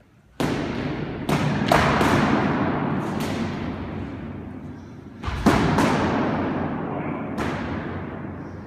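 Practice swords striking each other and the fighters in a bout: about nine sharp smacks, some in quick pairs or clusters. Each one rings out in a long echo off the bare walls of a racquetball court.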